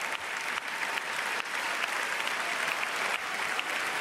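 Audience applauding, many hands clapping steadily; it swells a little in the first second, then holds.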